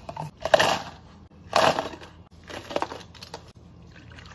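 Ice cubes tumbling into a plastic cup in three loud bursts about a second apart, the second the loudest, followed by a few light clinks.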